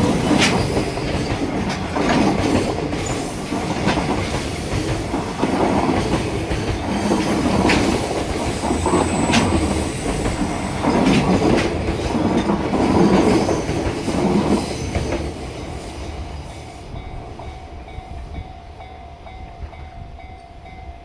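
Freight train's Koki container wagons clattering heavily over rail joints, a loud clack-clack every second and a half to two seconds as each pair of bogies crosses the joint. The clatter fades away about fifteen seconds in as the end of the train passes and recedes.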